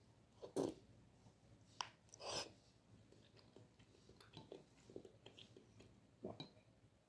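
A person eating jjajangmyeon, noodles in black bean sauce, close to the microphone: two slurps as the noodles are sucked in, about half a second and two seconds in, then soft wet chewing with small clicks.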